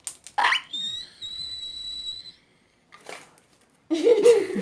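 A high whistle: a quick rising glide settling into one steady held note for about two seconds, then a voice briefly near the end.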